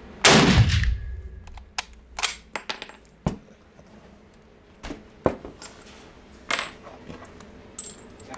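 A single shot from a Mauser K98k bolt-action rifle (7.92×57 mm Mauser), a loud crack with a long echo in an indoor shooting range. It is followed by a scatter of metallic clicks and clinks as the bolt is worked and the spent brass case lands.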